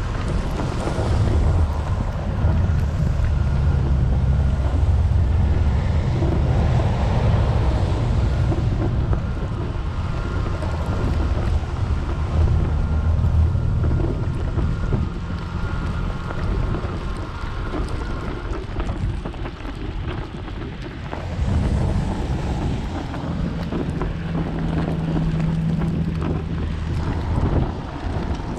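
Strong wind buffeting the microphone, a heavy low rumble that surges and eases. A faint steady whine runs through the first two-thirds.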